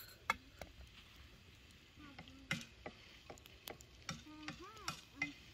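Hands mixing a soft flour-and-milk dough in a metal bowl: scattered soft clicks and taps, with a sharper clink about a third of a second in.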